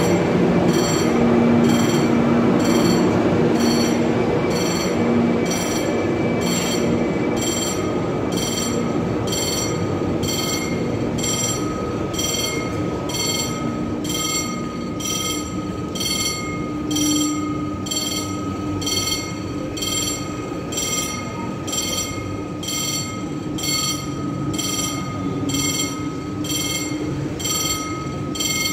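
Locomotive-hauled passenger train rolling slowly past along the platform: a rumble of wheels on rail that fades as the locomotive draws away, with a thin steady wheel squeal from about a third of the way in. A steady high electronic beep repeats about one and a half times a second throughout.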